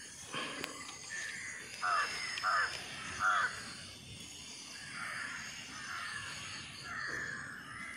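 Crows cawing: three short, clear caws close together about two to three and a half seconds in, with fainter calls later.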